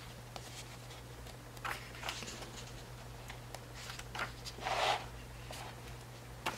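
Pages of a paperback picture book being opened and turned by hand: a few soft paper swishes and rustles, the loudest about five seconds in.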